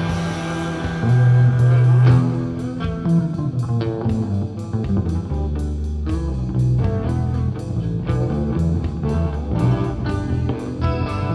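Background music: guitar-driven rock with plucked guitar notes over a bass line and a steady beat.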